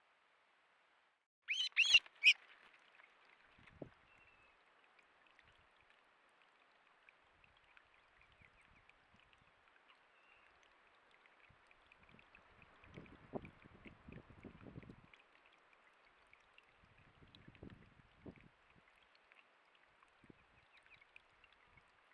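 A bird gives a quick series of three or four loud squawking calls about a second and a half in, heard over a trail camera's steady hiss. Softer low rustling and scuffling follows around the middle and again later.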